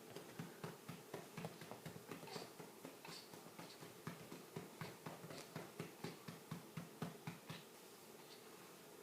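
Faint soft pats of a hand on a baby's back to bring up a burp, repeating steadily about two to three times a second.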